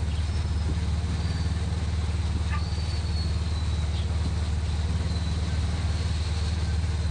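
Motorcycle engine of a tricycle running steadily at cruising speed, heard from inside its sidecar, with a steady hiss of wind and road noise over it.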